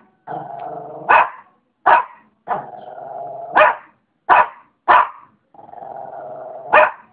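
Shih Tzu dog alternately growling and barking: three low, steady growls about a second long, broken by six sharp barks.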